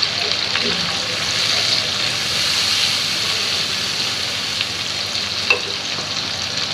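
Shrimp and capsicum sizzling steadily in oil in an uncovered frying pan, with a few sharp clicks of a utensil against the pan, the loudest about five and a half seconds in.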